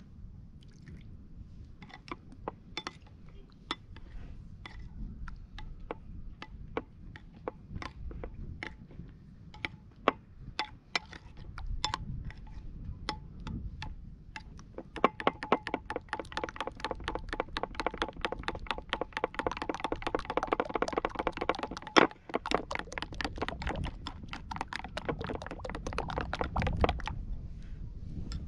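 Metal spoon clinking and scraping against a ceramic bowl while yogurt is stirred: scattered clinks at first, then from about halfway fast, steady whisking strokes, several a second, that stop near the end.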